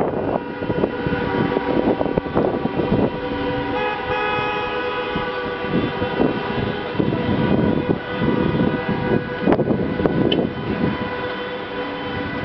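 Several car horns sounding at once in a stationary traffic queue, long overlapping blasts at different pitches that start and stop at different times.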